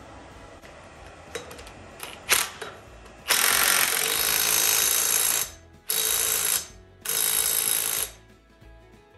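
A few light clicks, then three loud bursts of hissing noise: the first about two seconds long, the next two under a second each.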